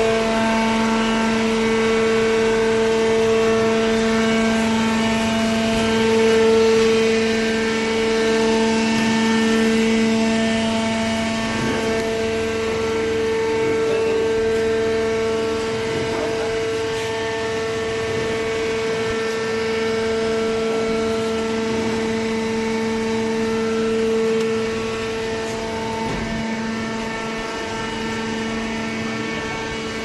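Hydraulic baler's power unit, an electric motor driving the hydraulic pump, running steadily with a constant pitched hum and its overtones.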